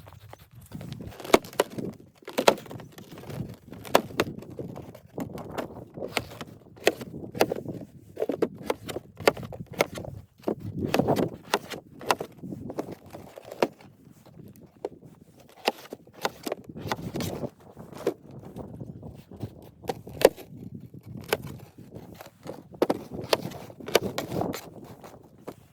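Irregular knocks, clicks and rustling: someone moving about and handling things, with occasional footsteps.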